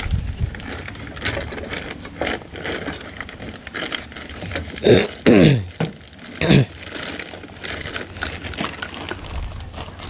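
Scattered light metallic clicks and taps of hand tools and excavator engine parts being handled, with three short sounds that fall steeply in pitch about halfway through.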